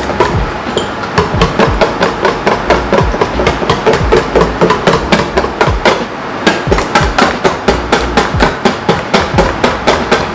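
A utensil beating an egg and condensed-milk mixture by hand in a bowl, knocking against the bowl in a quick, even rhythm of about four to five strokes a second.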